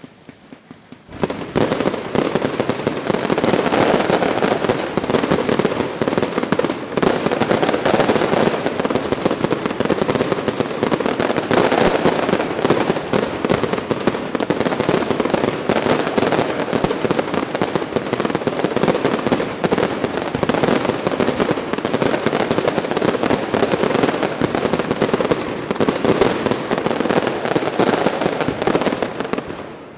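Fireworks display: a loud, dense, unbroken barrage of rapid bangs and crackles that starts suddenly about a second in and eases off just before the end.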